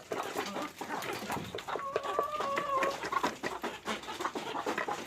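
Free-range chickens clucking, with one drawn-out call lasting about a second near the middle, among many short ticks.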